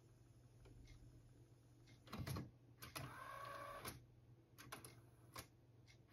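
Nakamichi CR-7A cassette deck's tape transport, faint: a clunk of the mechanism changing mode about two seconds in, then a brief whirring whine of the reels winding the tape back, with a few single clicks after. A low steady hum lies under it.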